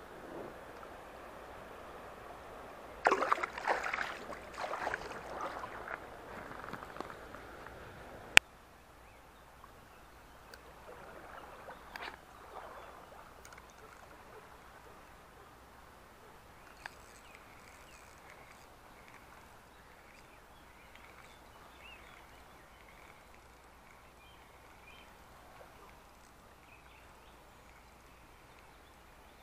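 Shallow river water running steadily, with loud irregular splashing for a few seconds as a chub held in the hands is let into the water. A sharp click follows, then the sound drops to a quiet, calm riverside with only faint scattered ticks.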